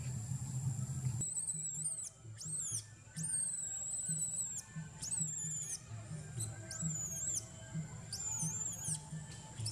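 Young macaque screaming, about seven high, shrill squealing cries with short gaps, starting about a second in; a young monkey in distress.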